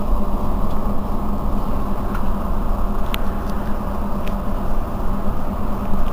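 Mercedes-Benz Citaro C2 city bus under way: a steady drone of engine and road noise with a constant low hum. A few light ticks or rattles come through, the clearest about three seconds in.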